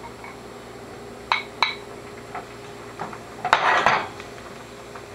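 Chopped onions going into a stainless frying pan of hot olive oil: two sharp clinks of the bowl against the pan about a second in, then a short noisy clatter a little past halfway as the onions are pushed around the pan with a wooden fork.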